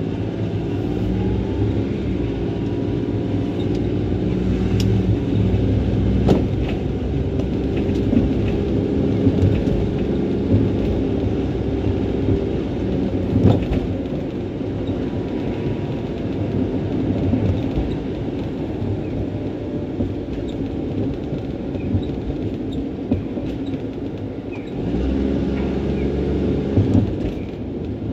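Road traffic and a tram on a city street: a steady low rumble of passing vehicles. Motor tones rise as vehicles pull away near the start and again near the end, with a few sharp clicks in between.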